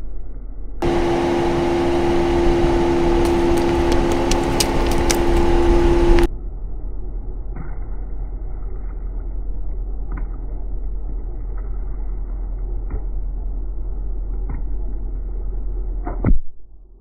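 Rolls-Royce tyre creeping over small objects on paving, with a steady low hum and a run of crackling crunches in the first half. Near the end a sharp pop as plastic tubes of juice burst under the tyre and squirt.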